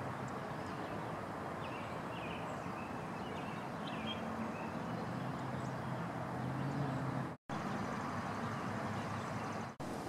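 Eastern chipmunk giving soft clucking alarm calls over a steady hiss of background noise, with a low steady hum in the middle. The sound drops out briefly twice in the second half.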